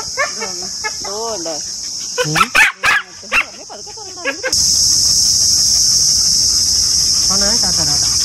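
Boarded dogs barking and whining in kennels, with a few loud sharp barks about two and a half to three and a half seconds in, over steady insect chirping. About four and a half seconds in the dogs cut off and the chirping of crickets or cicadas becomes louder and steady.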